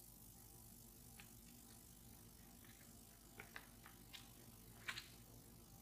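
Near silence, with a few faint, short clicks of glossy photo cards being handled and swapped, most of them between about three and a half and five seconds in.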